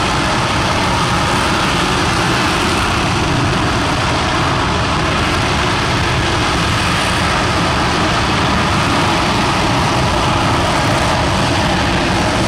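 Aerojet Rocketdyne RS-25 liquid hydrogen–liquid oxygen rocket engine firing on a test stand during a full-duration hot-fire test: a steady, loud roar.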